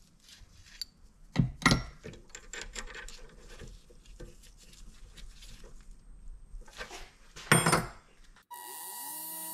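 Small metal parts handled and set in the three-jaw chuck of a Vevor 7x14 mini lathe, with a few sharp clunks: two close together about a second and a half in and one more near the end. Shortly before the end the lathe's motor starts, its whine rising in pitch and then holding steady.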